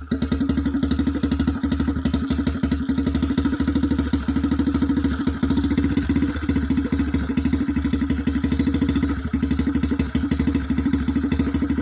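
Motorcycle engine running steadily under way, with an even, rapid pulsing.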